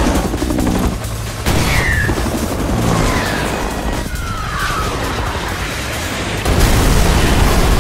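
Loud cinematic soundtrack music with heavy low booms; short falling tones sound about two, three and four and a half seconds in, and it swells louder near the end.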